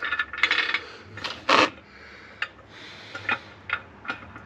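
The fixing of an underslung spare wheel carrier being screwed on by hand through the wheel's centre hole: scraping and rubbing, loudest a bit over a second in, then a run of sharp clicks.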